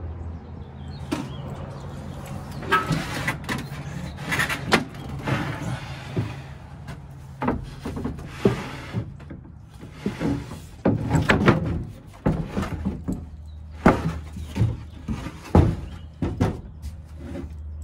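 Plywood platform boards sliding, scraping and knocking against each other and the steel truck bed as a board that had shifted forward and caught on a tie-down loop is worked back into place. A run of sharp wooden knocks, heavier in the second half.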